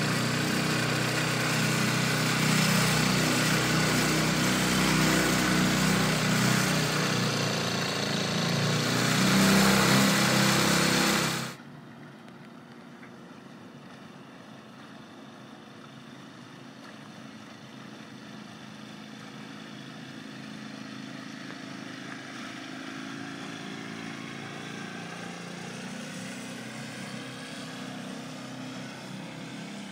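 Small LEHR propane-fuelled four-stroke outboard motor running steadily under way, heard up close from aboard the boat with water rushing past. About eleven seconds in it cuts to the same motor heard faintly from shore, growing louder as the boat approaches.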